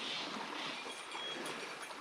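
River water flowing with a steady rush, brightening a little every half second or so.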